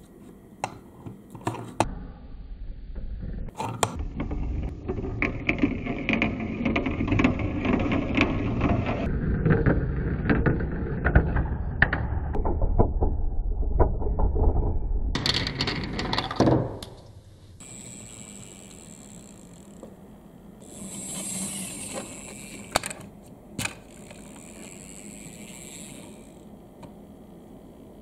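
Wooden marbles rolling and clacking down a wooden marble run: a continuous rolling rumble with many clicks that builds for about fifteen seconds, then stops suddenly, leaving a few scattered clacks and a fainter rolling hiss.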